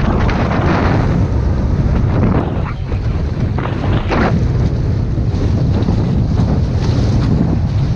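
Strong wind buffeting the microphone, with water rushing along the hull of a small wooden sailing boat under way, and a couple of louder washes of water about three and four seconds in.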